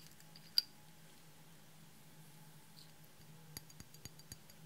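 Small plastic clicks and taps from hands handling craft items over a glass tray: one sharp click about half a second in, then a quick run of light ticks near the end, over a faint steady hum.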